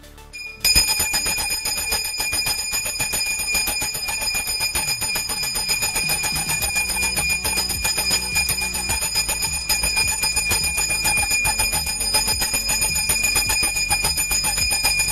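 Small brass puja hand bell (ghanti) shaken rapidly and continuously during aarti. It starts about half a second in, as a fast, even stream of strikes over a steady, high ringing tone.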